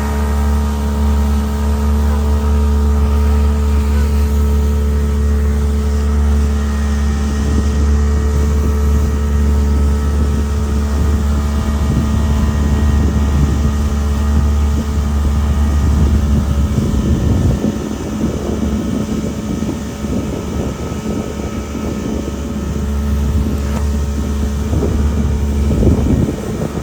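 Boat on a river: a steady motor hum with wind buffeting the microphone. About two-thirds of the way through the deepest part of the hum drops away and rough wind and water noise takes over.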